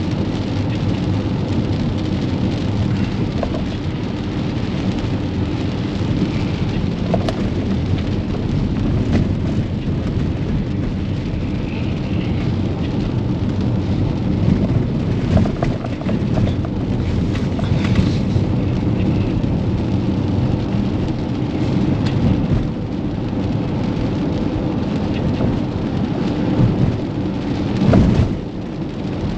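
Rain on a moving car, heard from inside the cabin, with tyres hissing on the wet road: a steady, dense rumble and patter. A brief louder surge comes near the end.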